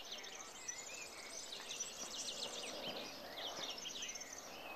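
Several birds chirping and singing at once, quick high trills and short whistled calls overlapping, over a soft outdoor background.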